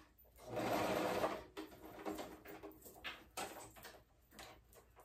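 Sewing machine running in one short burst of stitching about half a second in, followed by small clicks and rustles of fabric being handled.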